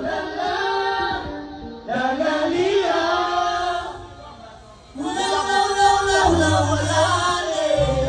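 Singing over music: three long, drawn-out sung phrases with wavering pitch, with a brief lull about halfway through.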